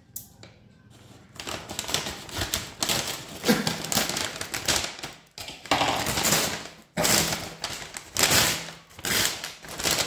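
Brown paper delivery bag being handled and opened: bursts of crinkling and rustling paper that start about a second in and come again and again, with short pauses between.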